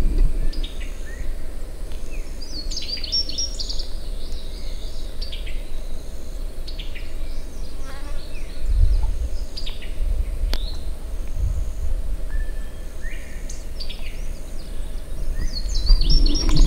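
Forest creek ambience: scattered short bird chirps and calls over a steady insect buzz and a low rumble.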